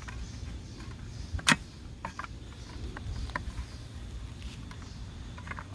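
Scattered light clicks and taps of a 6½-inch saw blade against a cordless circular saw's lower guard and housing as the blade is worked in under the guard by hand, with one sharper click about a second and a half in.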